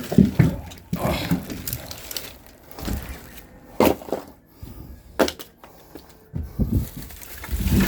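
Firewood logs being unloaded and tossed onto a pile: irregular wooden knocks and dull thumps, several sharp clacks among them.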